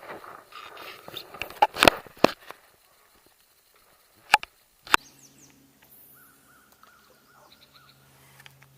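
A cluster of sharp knocks and clicks, then two more about a second apart, followed by a steady low hum with a faint wavering tone over it.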